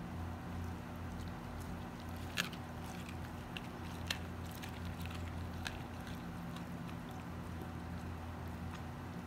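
Dog chewing a raw whole lake herring held in a hand, with a few sharp crunches of fish bone, over a steady low hum.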